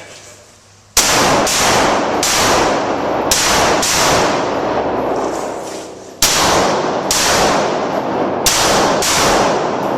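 Handgun fire in two quick strings: about five shots, a pause of about two seconds, then about six more shots, each followed by a long echo.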